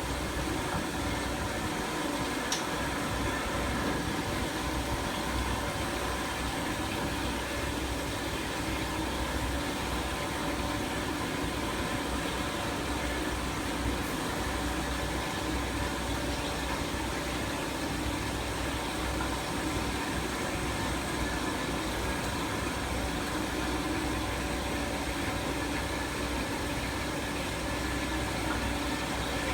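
Industrial automatic band saw machine running steadily: an even machine hum and whir with no change in pace, and a faint tick about two and a half seconds in.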